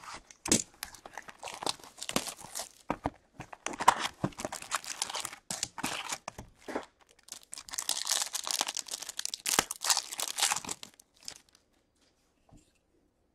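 Plastic shrink-wrap being slit with a small cutter and torn off a sealed hockey card box, then the cardboard lid pulled open and the wrapped pack inside handled: dense crinkling and tearing that stops about eleven seconds in.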